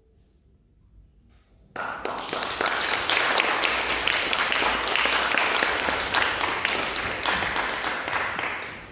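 Audience applause that breaks out suddenly about two seconds in after a hush, carries on steadily as many hands clapping, and fades away near the end.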